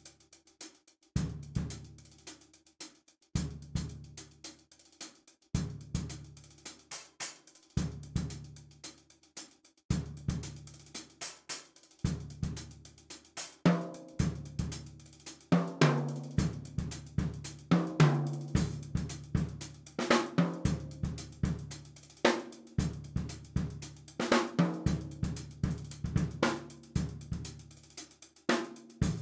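Music led by a drum kit playing a steady groove: hi-hat and cymbals over snare and bass drum, with a low pitched part repeating about every two seconds. It gets fuller and louder about halfway through.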